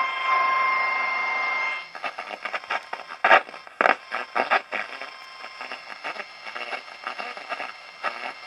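Vintage Sanyo Campanetta radio playing through its speaker while the fine tuning is turned: a steady whistle tone for about the first two seconds, then irregular crackling static.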